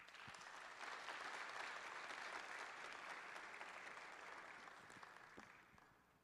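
Congregation applauding, a dense patter of many hands clapping that swells at once, holds, and dies away near the end.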